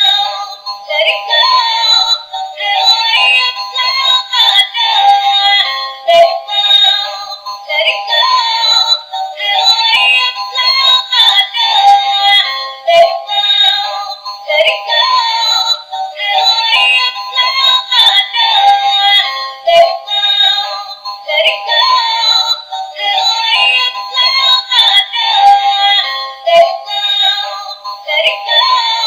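Dancing Chhota Bheem toy playing its electronic tune with synthesized singing through a small speaker. The sound is thin and tinny with no bass, and the same short melody loops over and over, about every seven seconds.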